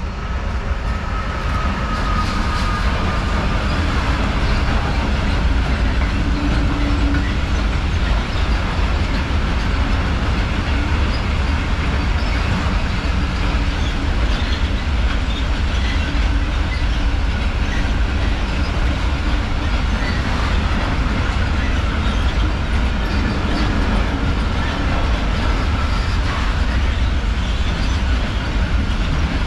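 Train rolling past at close range: a steady, loud rumble of wheels on rail with rhythmic clatter over the joints. A faint thin squeal rises out of it shortly after the start and again late on.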